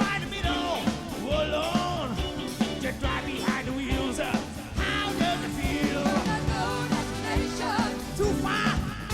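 Live soul band playing, with a singing voice over a steady drum beat.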